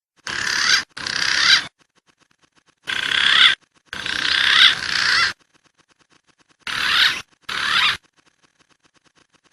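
Recorded wild pigeon calls played as a trapper's lure: three pairs of harsh, squealing calls, each about half a second to a second and a half long, with short pauses between the pairs.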